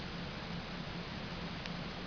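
Steady background hiss with a faint low hum, and a single faint click about one and a half seconds in.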